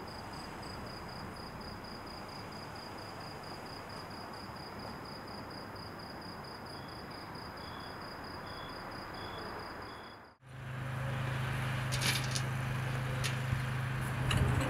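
Night ambience of crickets: one chirping steadily about four to five times a second over a soft hiss, joined by a second, lower one chirping more slowly from a little past halfway. After about ten seconds it cuts to a steady low engine hum with a few sharp clicks.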